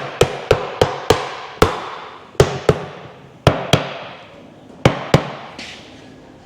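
Hammer taps on a Polaris Sportsman 850 transmission housing, driving it down over its dowel pins onto the case. About a dozen sharp knocks, often in quick pairs, each with a short metallic ring, stopping a little after five seconds once the housing is seated all the way home.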